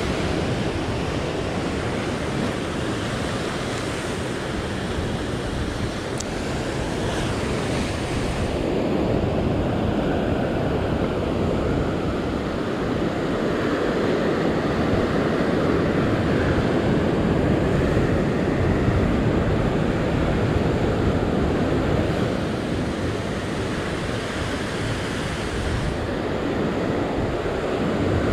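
Ocean surf breaking and washing over rock ledges: a steady rushing that swells louder through the middle and eases again near the end.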